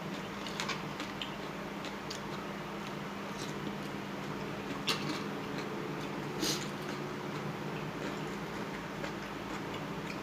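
Scattered light clicks and taps over a steady low hum, with two sharper clicks about five and six and a half seconds in.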